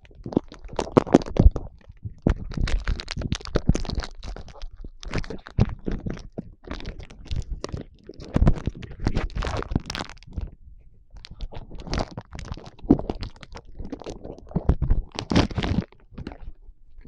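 An Ion Derby chocolate bar's wrapper being torn open and handled, with irregular crinkling and crackling.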